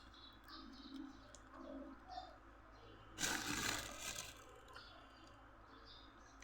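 Close-up eating sounds while eating a seafood papaya salad, faint and quiet, with one loud noisy burst about three seconds in that lasts about a second.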